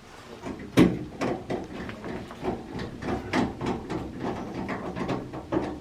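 Irregular knocks and clattering, the loudest about a second in, from the dryer's cabinet and parts being handled during reassembly after its control board was refitted.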